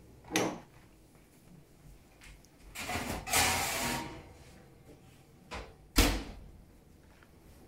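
Built-in kitchen oven being worked: a brief knock, then a longer scraping slide in the open oven about three seconds in. About six seconds in comes the loud thump of the oven door being shut.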